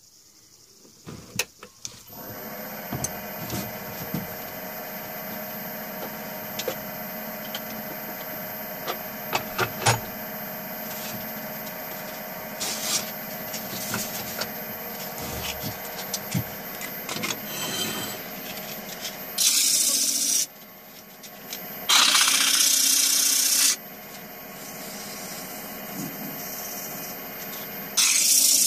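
Wood lathe motor switched on about two seconds in and running steadily with a whine, scattered small clicks over it. Later, sandpaper pressed against the spinning wooden bowl blank gives three short spells of loud hissing.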